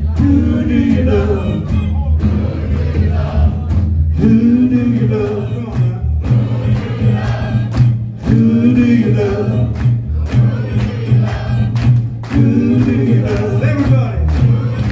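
Live rock band playing with a male lead singer, loud through the venue's PA: he sings a short phrase about every four seconds over the band's steady low bass and drums.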